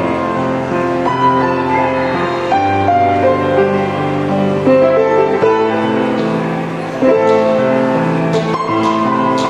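Instrumental background music: held chords with a melody moving over them.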